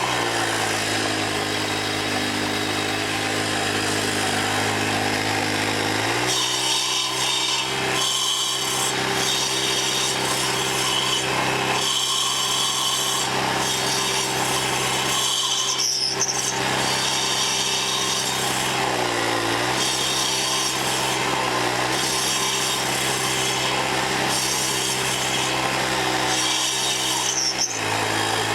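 Gas-engine sidewalk edger fitted with carbide-tipped saw blades grinding into a cedar stump: the small engine runs steadily under load over a rasping cutting noise. Its note sags and recovers a few times as the blades bite into the wood.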